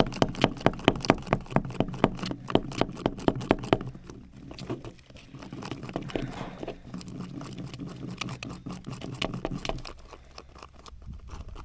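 Fiberglass resin and hardener being stirred with a chunk of scrap metal in an old paper coffee cup stiffened hard with cured resin. For the first few seconds the metal clacks and scrapes against the cup wall about four times a second, then it settles into a softer, denser scraping.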